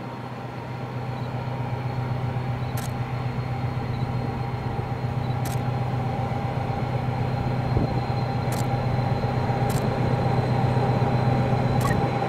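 Diesel locomotive engine running under steady load with a low drone and a higher whine, growing steadily louder, with a few faint clicks.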